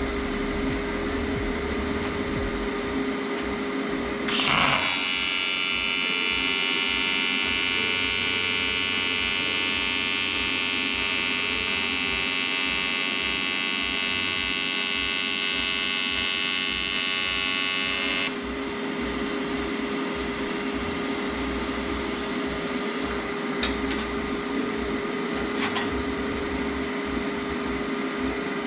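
AHP AlphaTIG 201XD AC TIG arc welding aluminum: the arc strikes with a short crackle about four seconds in, then gives a steady high-pitched buzz for about fourteen seconds before cutting off suddenly. A steady low hum runs underneath throughout, with a few faint clicks near the end.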